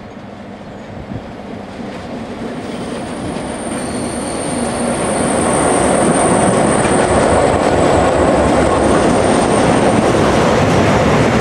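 A class 661 diesel-electric locomotive, an EMD G16 with a two-stroke V16 diesel engine, running under load while hauling a freight train past. The engine and the wheels on the rails grow steadily louder over the first five seconds or so as the locomotive comes close, then stay loud as it passes.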